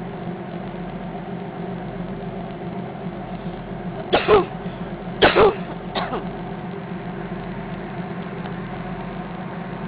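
Boat engine running with a steady drone. About four to six seconds in, three short, loud bursts of a person's voice, falling in pitch, stand out over it.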